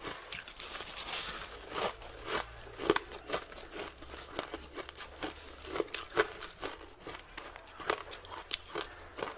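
Close-miked biting and chewing of a packed lump of shaved ice: irregular sharp crunches, two or three a second.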